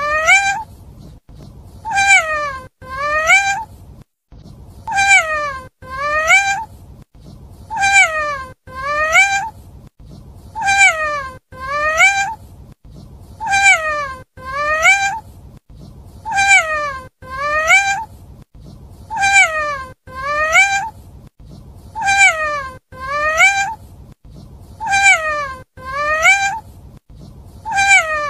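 A cat meowing in pairs: a falling meow followed at once by a rising one, the same pair repeating identically about every three seconds, about ten times.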